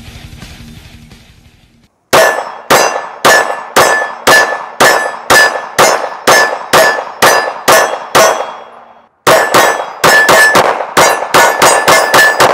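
Intro music fades out. Then a Shadow Systems MR920 Elite 9mm pistol fires a steady string of about a dozen shots, roughly two a second, each with a metallic ringing clang like a struck steel target. After a short pause a faster string of shots follows.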